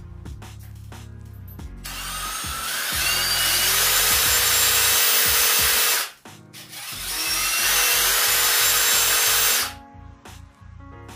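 Cordless 18V impact drivers, including a Keyang, run free with no load in a bit-wobble test. The motors whine up to speed and run steadily twice, for about four seconds and then about three, each stopping abruptly when the trigger is released.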